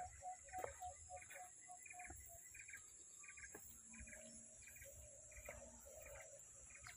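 Near silence with faint, evenly repeated chirping calls, short chirps in pairs about every half second, over a steady thin high-pitched tone.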